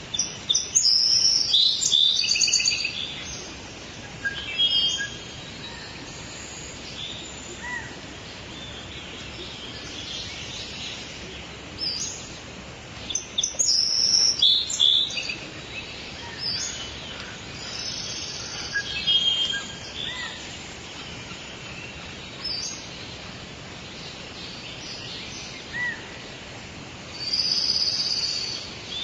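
Songbirds singing and chirping in short, high-pitched phrases, over a steady hiss of outdoor background noise.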